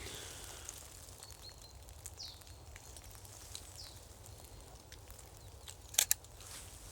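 Quiet forest ambience with a few faint, high, short falling chirps of a small bird. About six seconds in come two sharp clicks close together.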